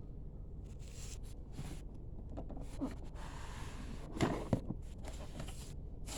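Light handling sounds from unboxing: scattered clicks and small knocks, with two louder knocks a little after four seconds in, over a steady low hum.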